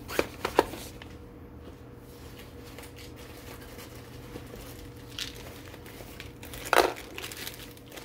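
Crinkling and rustling of a nylon sling bag being handled as items are packed into it, with a few light clicks at the start and a louder crinkle about two-thirds of the way through.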